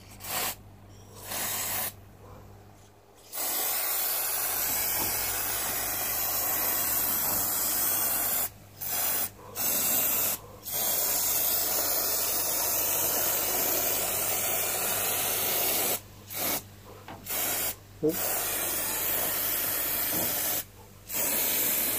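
Aerosol can of air-conditioner fin cleaner spraying onto the unit's cooling fins in hissing bursts: two short puffs, then long sprays of several seconds each, broken by brief pauses, and a few short puffs in between.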